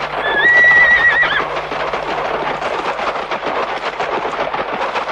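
A horse whinnies, one high wavering call of about a second near the start, over the fast hoofbeats of several horses galloping.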